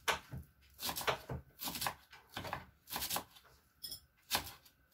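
Large kitchen knife chopping fresh green herbs on a wooden cutting board: a run of quick knocks, a few a second, in short bursts.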